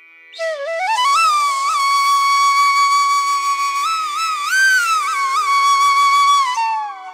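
Background music: a flute melody over a faint steady drone, sliding up into a long held note with small ornamental turns and falling away near the end.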